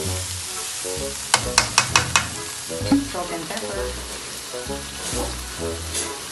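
Corned beef, onion and garlic sizzling in a nonstick wok as a wooden spatula stirs them, with a quick run of five sharp knocks of the spatula on the pan about a second and a half in.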